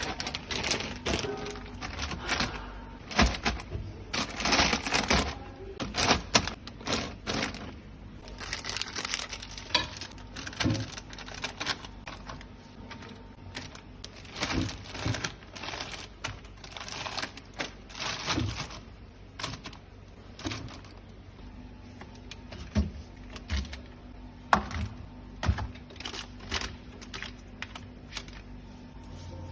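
Irregular clattering: clicks, knocks and rustling of objects being handled and set down.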